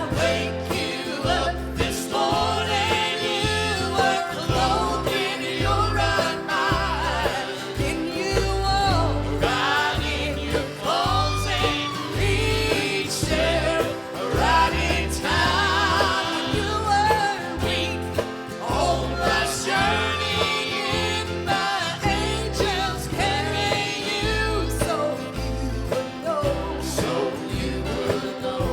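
A gospel song sung with instrumental accompaniment: a singing voice over a steady, pulsing bass line.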